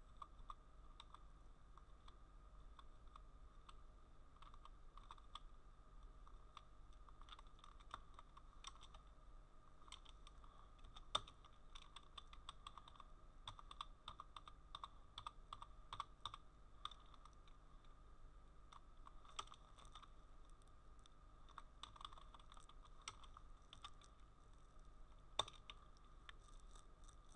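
Faint typing on a computer keyboard: quick, irregular keystrokes throughout, with two sharper key presses, one about eleven seconds in and one near the end.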